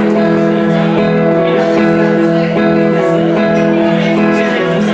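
Acoustic guitar strumming a steady chord pattern, the instrumental intro of a live song.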